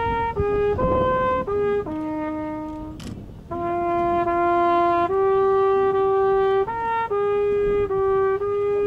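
A solo trumpet plays a slow military call, one note at a time, each note held. It ends on a long sustained note.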